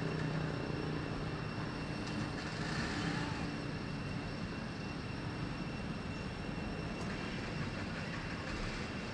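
Steady rumble of a distant engine, with a faint steady high whine above it.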